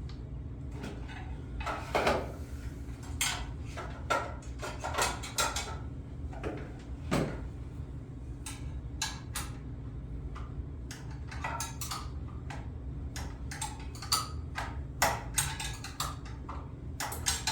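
Irregular metallic clicks and knocks of a circular saw's blade bolt being tightened by hand with the spindle lock pressed, the tool and saw parts clattering against each other.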